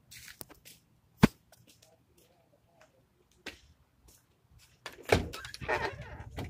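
A single sharp clack about a second in, a lighter knock a couple of seconds later, then a burst of rubbing and bumping from the phone being handled and moved about.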